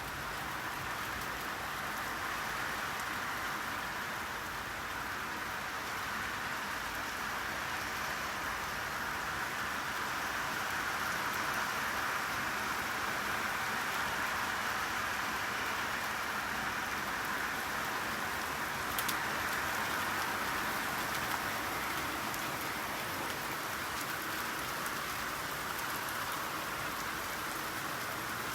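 Steady rainfall: an even hiss of many raindrops, with one sharper tick about two-thirds of the way through.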